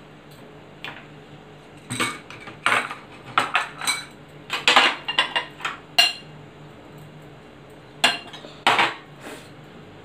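Crockery and kitchen utensils clinking and knocking as bowls, a plate and a spoon are handled and set down: short sharp clinks, some ringing briefly, in irregular clusters with quiet gaps between, the busiest stretch about halfway through.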